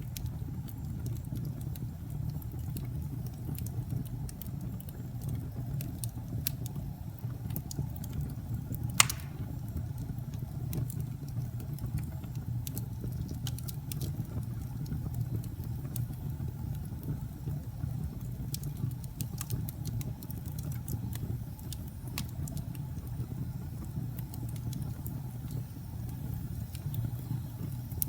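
Log fire burning in a fireplace: a steady low rumble of flames with scattered crackles, and one sharp, loud pop about nine seconds in.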